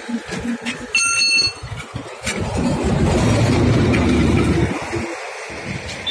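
Highway traffic passing close by: a heavy vehicle rumbles past in the middle and then cuts off abruptly. About a second in there is a brief high-pitched tone.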